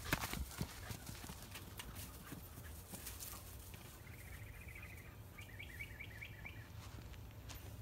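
Faint, irregular footfalls and scuffling on straw-covered dirt, after a few sharp knocks in the first second. A quick run of high chirps comes about four to six and a half seconds in.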